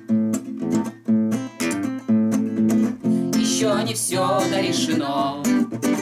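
Nylon-string classical guitar with a capo, strummed in a steady rhythm of chords.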